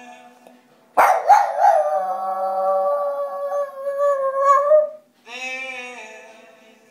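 Boston terrier howling along to a song: one long howl starts suddenly about a second in, wavers at first and is then held for about four seconds.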